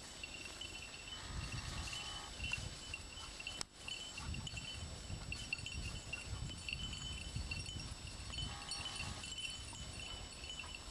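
Small metal bells jingling on and off over a low rumble.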